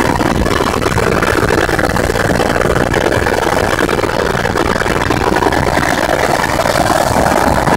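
Helicopter engine and rotor noise heard from inside the cabin in flight, loud and steady.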